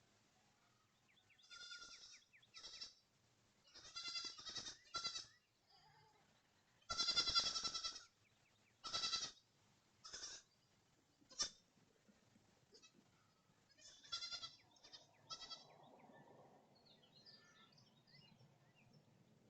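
Goats bleating: about a dozen wavering, high-pitched cries in a loose series, the longest and loudest about a second long near the middle. Faint bird chirps come near the end.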